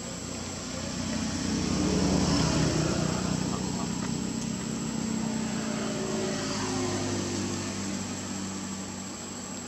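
An engine passing by, swelling to its loudest about two seconds in and then slowly fading, its pitch sliding down a little as it goes.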